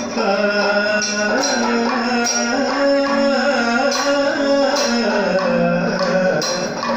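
Live Kathakali accompaniment: singing in Carnatic style, with long notes that slide between pitches, over strokes on a hand-played barrel drum and sharp percussion strikes every second or so.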